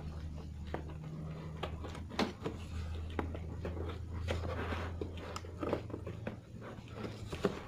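A cardboard box being handled and carefully opened: scattered small clicks, taps and rustles of the packaging, over a low steady hum.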